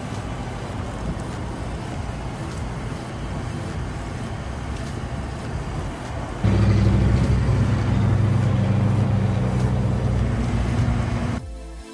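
Boom lift's engine running with a steady low drone, jumping suddenly louder with a strong low hum about six and a half seconds in, and cutting off shortly before the end.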